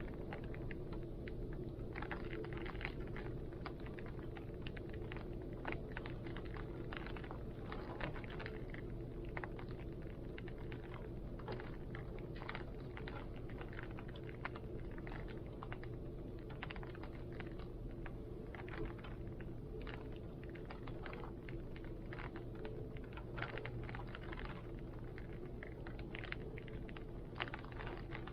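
Heavy rain and strong wind: a steady low rumble of wind under many irregular drops ticking and tapping.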